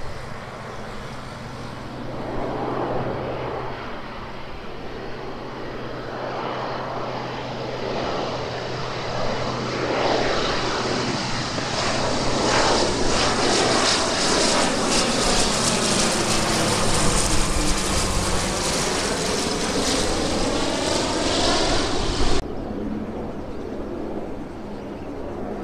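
Twin-turboprop aircraft with landing gear down flying low overhead: engine and propeller noise builds up, peaks and falls in pitch as it passes, then cuts off abruptly near the end.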